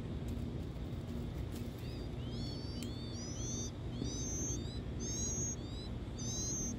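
Nestlings in the nest begging: short, thin, high-pitched chirps repeated about twice a second, starting about two seconds in, as they gape with wide yellow mouths. A steady low rumble runs underneath.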